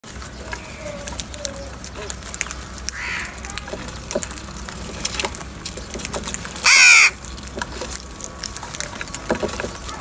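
A flock of house crows feeding from a bowl of grain: many small clicks of pecking throughout, a faint call about three seconds in, and one loud, harsh caw a little after halfway.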